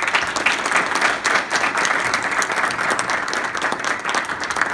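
Audience applauding: dense, steady clapping from many people that starts abruptly at the close of a speech.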